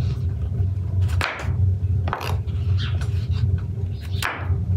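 Kitchen knife slicing through raw button mushrooms and knocking on a wooden cutting board, about one cut a second, four or five in all, over a steady low hum.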